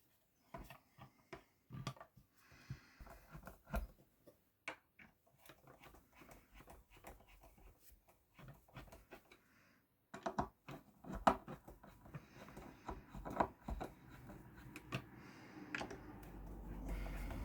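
Irregular small clicks, taps and knocks of hand work with small parts and tools, with a brief pause about ten seconds in; a low steady rumble comes up over the last couple of seconds.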